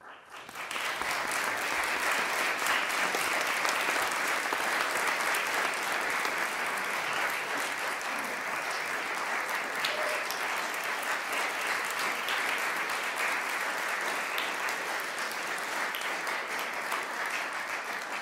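Audience applauding, breaking out all at once right after the music ends and then going on steadily.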